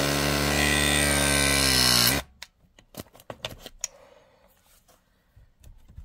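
Powered RLS press tool with a 3/8 inch jaw crimping a copper refrigerant coupling: its motor runs for about two seconds as the jaw closes on the fitting, then cuts off once the press completes. A few light clicks follow as the tool is handled.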